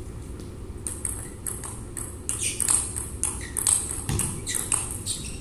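Table tennis ball clicking sharply off rackets and table during a rally, several irregular hits a second, with a dull thump about four seconds in.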